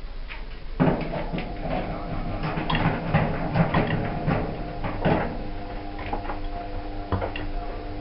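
Irregular clattering knocks and scrapes of a tumble dryer's metal casing panels being handled and shifted as the screws come out, starting suddenly about a second in, over a steady hum.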